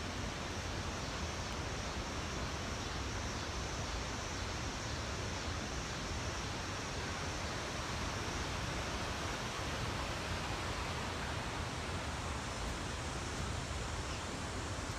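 Steady, unbroken rush of the New River's water pouring over rapids and falls.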